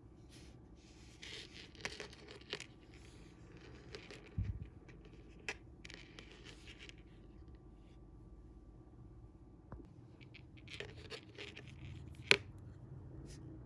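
Faint rustling and scraping of fingers handling monofilament fishing line and a sinker rig on a tabletop, with scattered small clicks, a soft thump a little after four seconds and one sharper click near the end.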